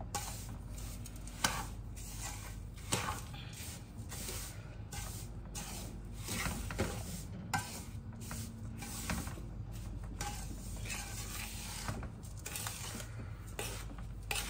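Wooden spoon stirring a dry, crumbly panjiri mix of roasted semolina and ground dry fruits in a large metal pan, a steady shuffling scrape with irregular knocks of the spoon against the pan.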